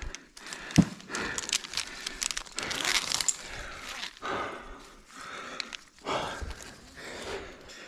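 Irregular rustling and scraping of a climber working against a slimy tree trunk, with a sharp knock about a second in.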